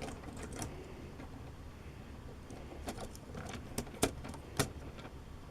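Small hard plastic clicks and taps of LEGO pieces being handled, a few scattered clicks mostly in the second half, the sharpest about four seconds in.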